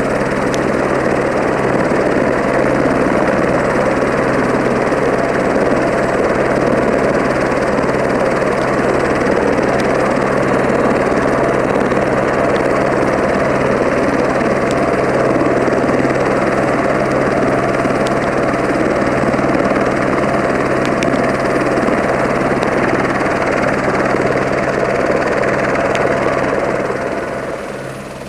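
Eurocopter AS350 Esquilo police helicopter running on the ground with its main rotor turning: a steady, loud turbine and rotor noise with a constant low hum. It grows quieter about 27 seconds in.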